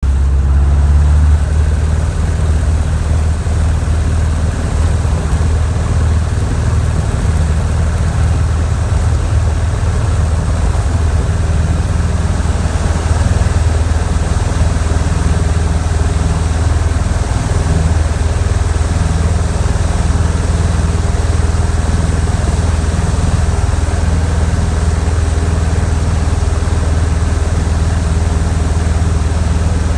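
Funk light airplane's piston engine and propeller running with a steady, loud drone, its low tone shifting slightly about a second and a half in.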